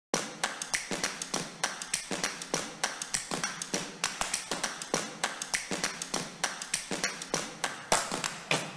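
Rapid, uneven series of sharp taps or clicks, about four or five a second, with a faint low hum beneath; one louder tap comes near the end, and the sound then fades out.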